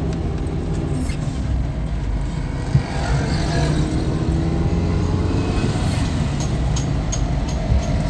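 Engine and road noise heard from inside a moving car's cabin, a steady low rumble, with a single sharp knock a little under three seconds in.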